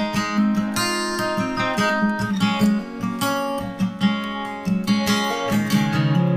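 Background music: strummed and picked acoustic guitar.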